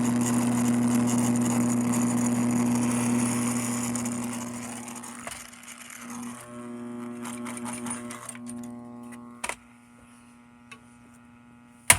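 Vintage alarm clock's speaker turned up loud, putting out a steady hiss of static over a low hum; about five seconds in it dies down to a quieter hum with faint steady tones. Two sharp clicks near the end.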